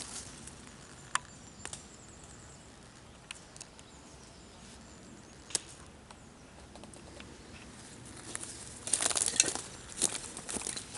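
Quiet outdoor background broken by a few single sharp clicks, then a louder spell of rustling in leaves and undergrowth about nine seconds in.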